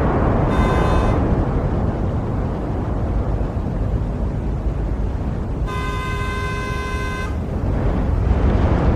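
City street traffic rumbling steadily, with a vehicle horn honking twice: a short toot about half a second in and a longer blast of about a second and a half past the middle.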